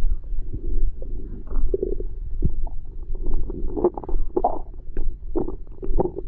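Human stomach growling and gurgling during digestion after a meal: a continuous low rumble broken by irregular bubbly gurgles and pops, with a busier run of gurgles a little past the middle.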